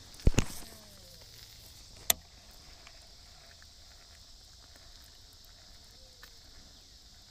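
A loud short thump about a third of a second in and a sharp click about two seconds in, over a faint steady outdoor hum and hiss.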